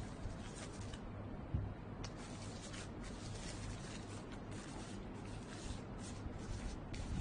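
A thin, cassava-based biodegradable plastic bag rustling and crinkling as it is handled and shaken out, with one low thump about a second and a half in.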